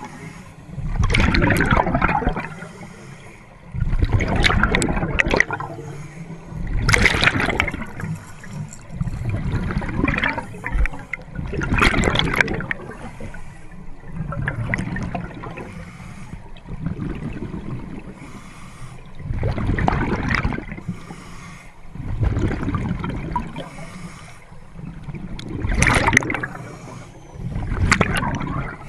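Scuba divers breathing through their regulators underwater: exhaled air bubbles gurgling and rushing up in surges about every two to three seconds, with quieter rumble between breaths.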